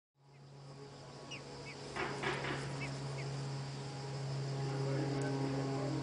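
A steady low electrical hum with a hiss, over which a few faint, short, falling bird chirps sound in the first half, with a brief rustle about two seconds in.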